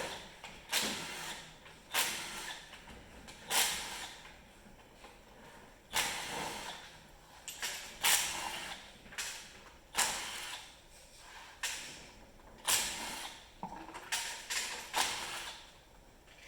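Metal tools and engine parts clanking and rattling in a string of about a dozen sharp knocks, each trailing off, as a snowmobile engine is hurriedly stripped down by hand.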